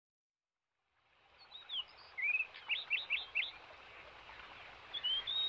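Birds chirping over a faint hiss after about a second and a half of silence: a few short high chirps, a quick run of them, a pause, then a few more near the end.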